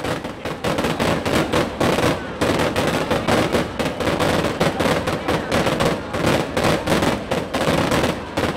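Aerial fireworks bursting in quick succession: a dense, unbroken run of bangs and crackles, several a second.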